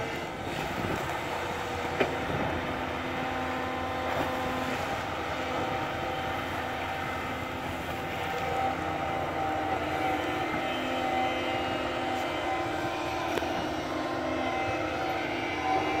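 Doosan crawler excavator's diesel engine running steadily with a held whine while it digs and swings its bucket of sand. A sharp knock about two seconds in, with a few fainter clunks later.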